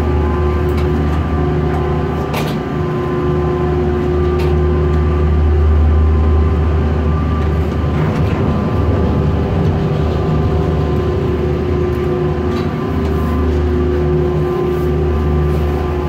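Doppelmayr cabriolet gondola terminal machinery running steadily: a low rumble with several steady whining tones, and a few sharp clicks as cabins pass through the station.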